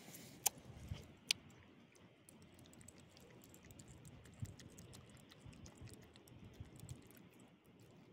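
Elderly small dog, her right gum swollen, eating food from a hand: a run of faint, quick clicks and smacks of chewing and licking, with two sharper clicks within the first second and a half.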